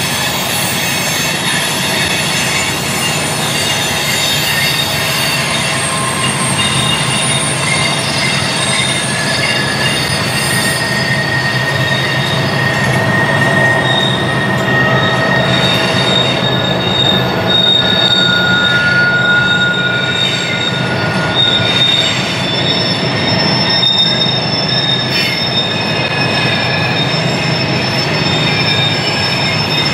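Wheels of open-top trash cars on a passing freight train squealing on a sharp curve. Several steady high-pitched squeals come and go over a constant low rumble of wheels on rail.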